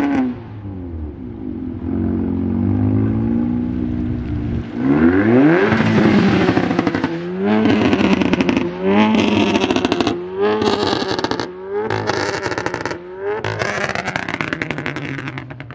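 A car engine revved hard over and over, the revs climbing steeply about once a second, with a harsh rasp at the top of each rise, while the car slides on wet tarmac. For the first few seconds the engine runs lower, its revs falling away, before the hard revving starts.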